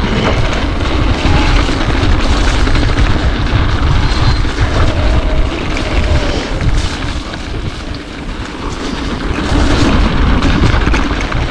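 Mountain bike riding a dirt trail at speed: steady tyre and rattle noise under heavy wind rumble on the camera's microphone, easing briefly about eight seconds in before picking up again.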